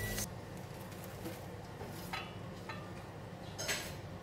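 Hot oil sizzling in a pan, cutting off sharply a moment in. Then a few soft scrapes and light knocks of a silicone turner against a ceramic frying pan as fried anchovies are scraped out.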